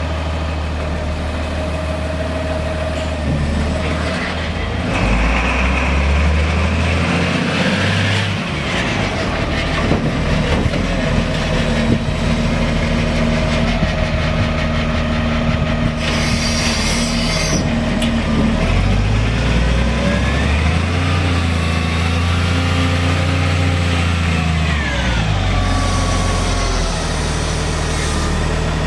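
Volvo L120F wheel loader's six-cylinder diesel running, its engine speed stepping up and down as the machine drives and works its boom. A short hiss comes about halfway through, and a whine that rises and falls in pitch comes in the last third as the bucket is raised.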